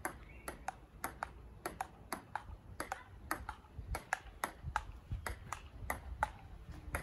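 Table tennis rally: the ball clicking back and forth off the bats and the table in a steady rhythm of about four hits a second.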